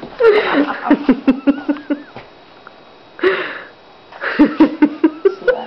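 A short-nosed bulldog-type dog snorting and wheezing in quick runs of rough breaths, with a few faint high wavering squeaks among them and a short pause near the middle.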